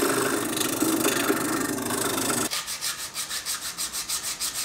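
Benchtop drill press running steadily while its bit bores into a purpleheart and Baltic birch block; it stops about two and a half seconds in. Then the wood is hand-sanded in quick back-and-forth strokes, about five a second.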